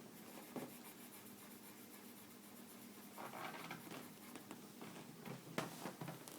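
Pencil scratching on paper, drawing small eyes, in a short stretch about three seconds in, with a few light taps; the sharpest tap comes near the end.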